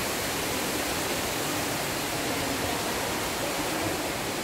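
Steady rushing hiss of water, even and unbroken, from the spray and falling water in a misted indoor cloud-forest conservatory.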